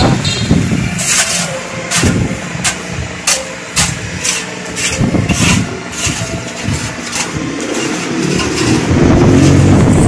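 An engine runs steadily throughout, with irregular sharp clicks and knocks over it, and a louder low rumble near the end.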